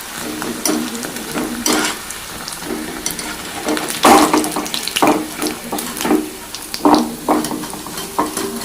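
Food frying in hot oil, with repeated clinks and scrapes of a metal utensil against the pan.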